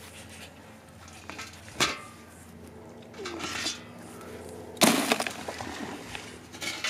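Cooked mud crabs being lifted out of a steel stockpot and dropped into a plastic cooler: a sharp knock about two seconds in, some dripping and splashing, then a loud clatter near five seconds as a crab lands in the cooler.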